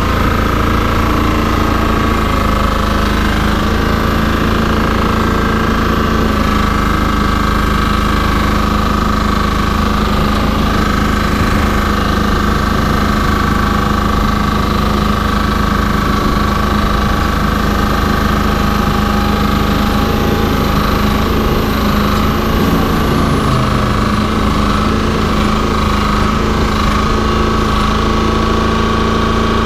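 Steady running of airport ramp machinery: a constant high whine over a low engine hum, with a brief falling tone about three-quarters of the way through.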